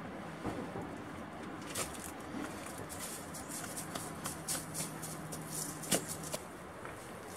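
Footsteps scuffing on rock, grit and dry leaves, with clothing rustling: a string of irregular clicks and scrapes, the sharpest about six seconds in.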